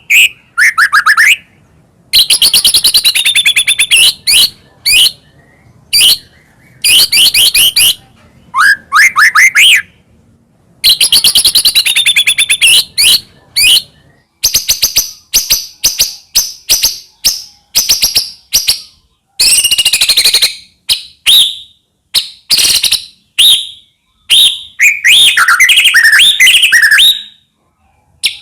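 White-rumped shama singing loudly: phrases of fast repeated notes, trills and slurred whistles, broken by short pauses, with a quick chattering run of notes near the end.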